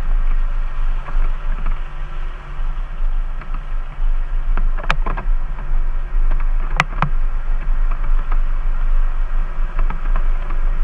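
Jeep running off-road: a steady low rumble, with a few sharp knocks about five and again about seven seconds in.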